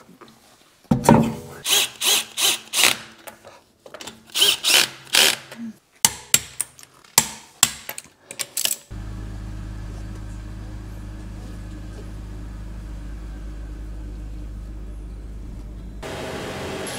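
Short bursts of a cordless drill and sharp tool clicks as the wheel bolts are run in on a BMW E46 330Ci. About nine seconds in this gives way to the steady low drone of the car being driven.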